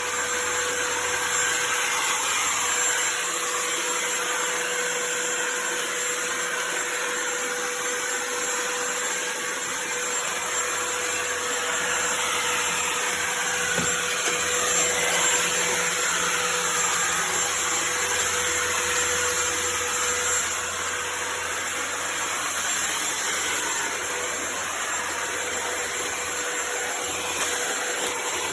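Kenmore DS1030 cordless stick vacuum running steadily: a constant rush of air with a steady motor whine over it.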